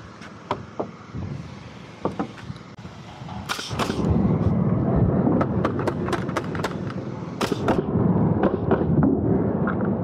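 Pneumatic framing nailer firing nails into roof framing lumber: a run of a dozen or so sharp shots between about three and a half and eight seconds in, over a steady low rumble.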